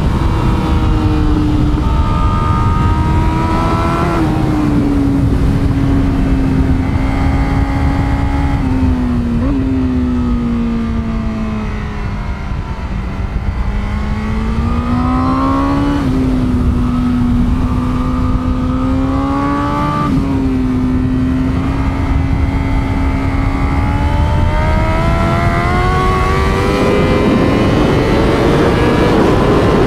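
2021 Honda Fireblade SP's inline-four engine running hard on track, heard from the bike itself. Its pitch rises and falls with speed, with sudden little jumps in revs, sinks lowest around the middle as it slows for a corner, and climbs again toward the end, over heavy wind rush.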